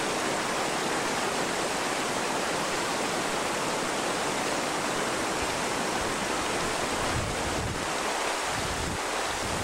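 Shallow river rapid rushing steadily over and around boulders: whitewater close by.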